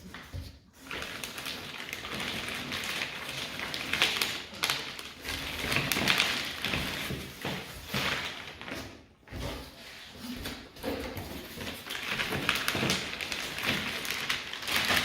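Packaging rustling and scraping as parts of a gaming chair are lifted out of their box, with scattered taps and thumps of handling.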